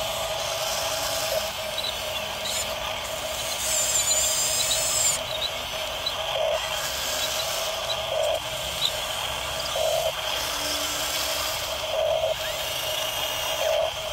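Small electric gear motors of an RC bulldozer and RC excavator whining as the models work a pile of gravel: a steady whine that swells in short pulses every second or two.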